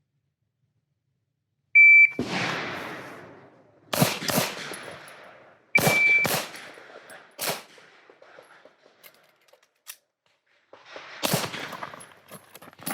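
A shot timer beeps to start the stage, then a handgun fires a string of shots with pauses between them, several as quick double taps, each shot ringing out briefly. A second short beep sounds partway through.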